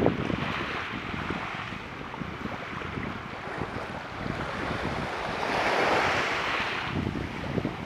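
Surf washing onto a beach, one wave swelling up and washing in about three-quarters of the way through. Wind buffets the microphone with low rumbling gusts.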